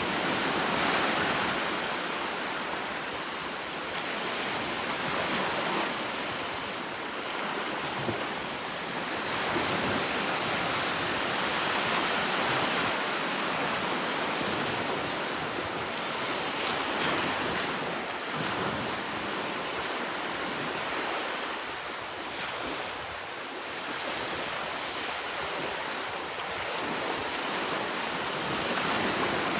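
Sea waves breaking and washing on a shore, a steady hiss that swells and eases every few seconds.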